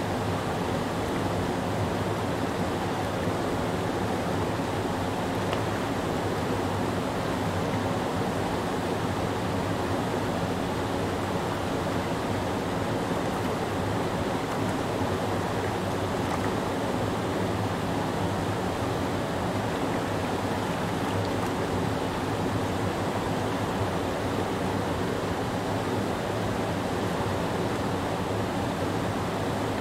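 Whitewater rapids of a forest creek pouring over a low rock ledge: a steady, unbroken rushing of water.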